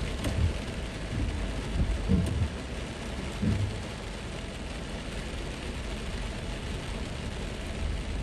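Steady rainfall hissing, with a few short low thuds in the first few seconds before it settles to an even patter.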